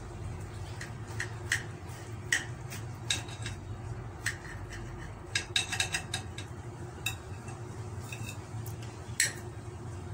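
Metal knife cutting through an omelette and clicking and scraping against a ceramic plate in irregular short strokes, the loudest a little before the end, over a low steady hum.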